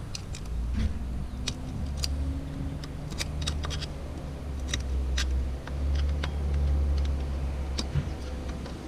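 Small metallic clicks and scrapes at irregular intervals as a steel snap ring is worked around into the groove of an exhaust muffler's end cap with a small screwdriver, over a low steady rumble.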